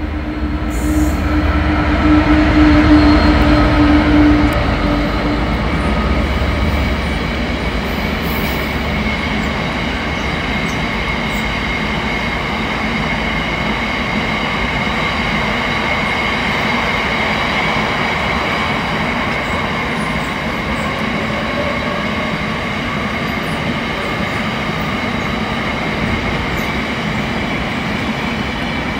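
A freight train passing: the locomotive's engine is loudest in the first few seconds, then a long run of wagons rumbles steadily over the rails with a high, ringing wheel squeal.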